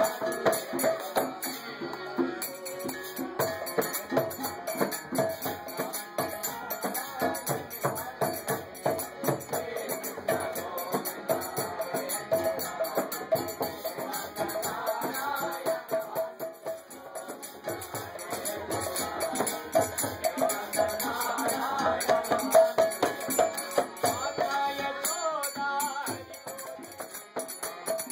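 Devotional group music in kirtan style: voices chanting over fast, steady jangling hand percussion that keeps an even beat.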